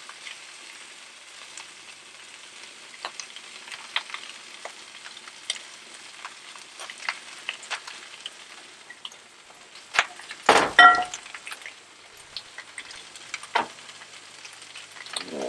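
Cold rice and butter sizzling on the hot steel top of a Blackstone propane griddle, with small crackling pops. There is one loud clank about ten and a half seconds in.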